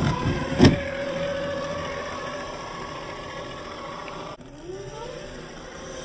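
Electric drivetrain whine of an RC scale crawler, the Traxxas TRX4 Sport's sensored brushless motor and gears, running steadily under throttle as it crawls over rock, with two loud knocks about half a second apart near the start. About four seconds in, the sound cuts off and a new motor whine rises in pitch as a crawler accelerates.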